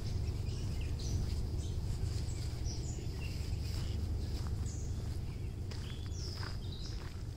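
Several birds chirping and calling in short, scattered notes from the trees over a steady low background rumble, with a few faint footsteps crunching on a gravel path near the end.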